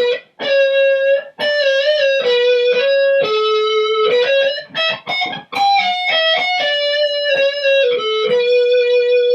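Electric guitar played through a Yamaha GEP50 distortion preset: a single-note lead line with a few bent notes and short breaks, ending on one long sustained note. The tone is one the players liken to a cheap transistor practice amp, not a Mesa Mark III.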